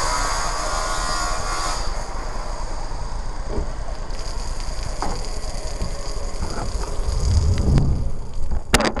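Steady hissing spray of water from an outdoor shower, with a sharp click near the end.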